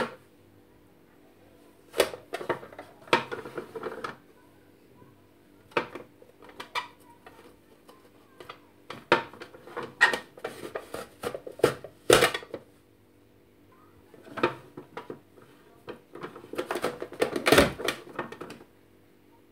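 Plastic push-down vegetable dicer being pressed again and again, each stroke a sharp plastic clack as potato is forced through its grid blade and the cubes drop onto a wooden cutting board. The strokes come irregularly, in several clusters.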